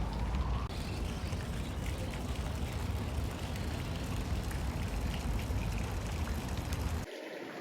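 Steady outdoor ambience: an even hiss over a low rumble, with no distinct events. It drops abruptly near the end.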